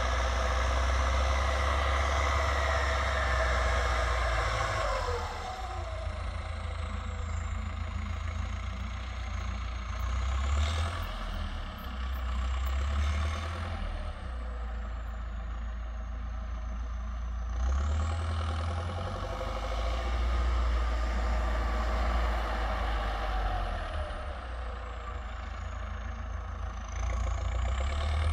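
Belarus MTZ 1025.4 tractor's turbocharged diesel engine with a straight-pipe exhaust, running under load while ploughing. Its pitch drops about five seconds in, comes back up around 18 s and drops again a few seconds before the end, with a faint high whine rising and falling above it.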